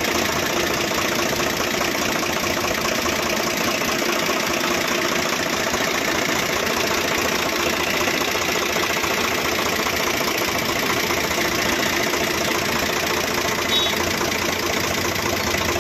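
Swaraj tractor's diesel engine running steadily at idle, driving the power steering while the steering cylinder is stroked in and out.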